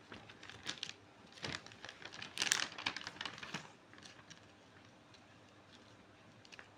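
Paper and plastic packaging being handled: drawing-book pages turned and a small cardboard box pulled from a plastic bag, giving a run of light rustles and clicks that is loudest about two and a half seconds in and fades out after about four seconds.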